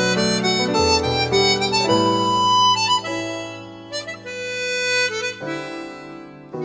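Background instrumental music with a harmonica-like reed melody over held notes.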